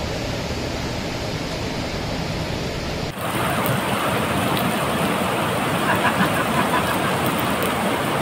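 Steady rush of a stream cascading over rocks, heard as an even hiss; about three seconds in it changes abruptly to a closer, brighter rush.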